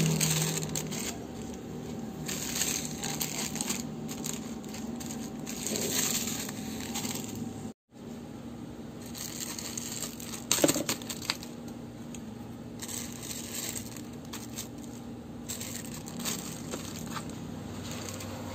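Plastic laundry-detergent sachets crinkling and rustling as they are handled and set into a plastic basket tray, with small clicks and one sharper knock about ten seconds in. The sound cuts out completely for a moment about eight seconds in.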